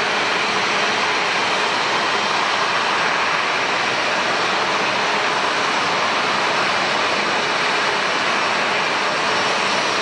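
Jet airliner engines running: a steady, even rushing noise with a faint steady hum in it, holding the same level throughout.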